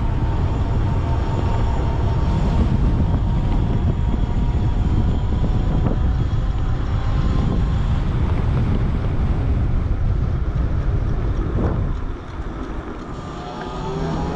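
Wind buffeting the microphone on a moving 3000 W electric bike, over the faint steady whine of its motor. Near the end the wind rumble eases and the motor whine climbs in pitch.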